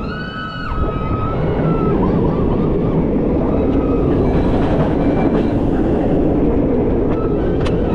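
Roller coaster train running fast along its steel track, with a steady rush of wind and rumble on the front-row microphone.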